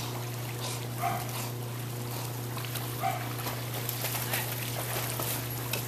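A dog gives two short, high whines or yips, about a second and three seconds in, over a steady low hum and the light splashing of dogs swimming.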